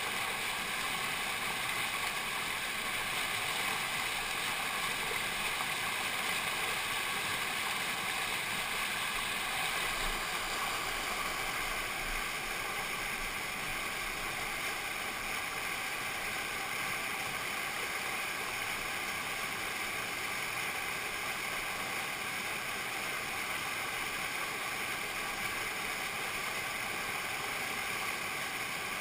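Whitewater rapid rushing steadily over rocks.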